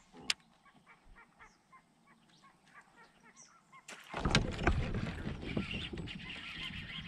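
Faint honking of geese, with a sharp click just after the start. About four seconds in, a sudden loud burst of splashing commotion begins as a bass is hooked on a topwater walking bait.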